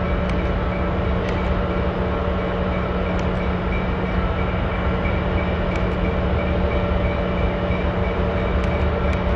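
Baldwin S12 diesel switcher locomotive running steadily as it moves slowly along the track, a constant low engine drone with a few faint ticks scattered through it.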